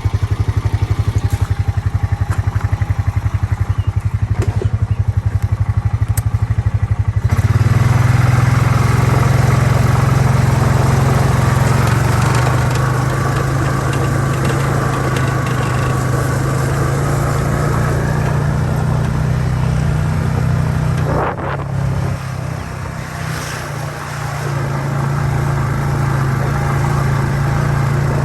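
A vehicle's engine running while driving, pulsing steadily at first, then louder and higher from about seven seconds in. It eases off briefly about three-quarters of the way through, then picks up again.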